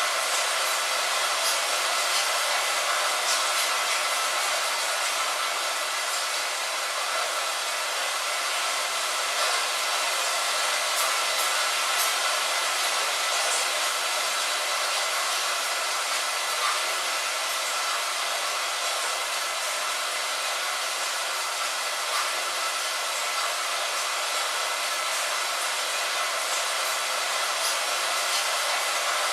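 Steady rain on a window: an even, bright hiss with scattered sharper drop ticks and almost no low rumble.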